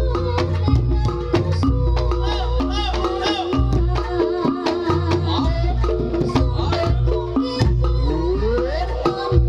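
Reog Ponorogo gamelan music: drums beating a dense rhythm over held gong and metallophone tones, with a wavering melody line on top that makes a rising glide near the end.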